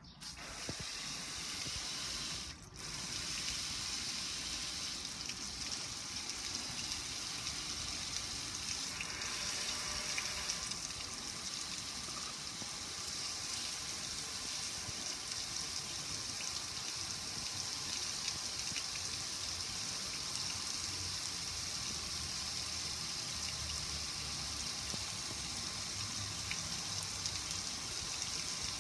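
Water pouring over the metal lid and control panel of a gas grill, a steady splashing hiss that breaks off briefly about two and a half seconds in.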